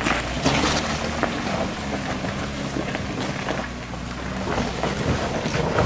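Jeep Wrangler engine running at low, steady revs as it crawls over a rocky trail, its hum weakening a little near the end, with wind buffeting the microphone.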